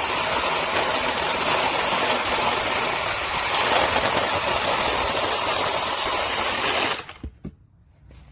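Tomyvic 21-volt battery-powered 6-inch mini chainsaw running steadily while cutting through wood, then cutting off suddenly about seven seconds in, followed by a few light knocks.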